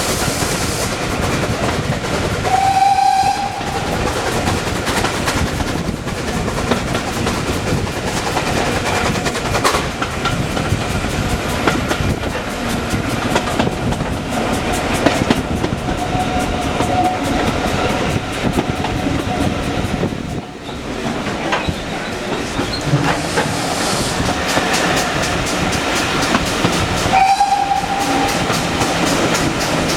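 A train running on the rails, with the clickety-clack of wheels over rail joints. A short high tone sounds about three seconds in and again near the end, fainter once in between.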